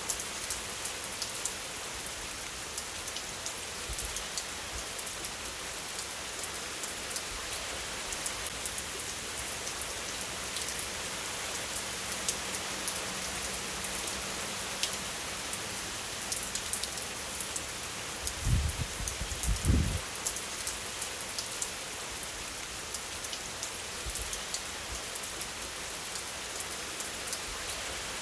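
Steady rainfall: a dense, even hiss with countless small drop ticks close to the microphone. Two low thumps come a little past two-thirds of the way through.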